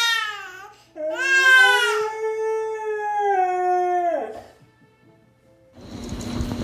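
A baby's crying trails off, then a husky howls one long call starting about a second in, rising, holding and falling away just after four seconds. Near the end a steady low hum and faint noise come in.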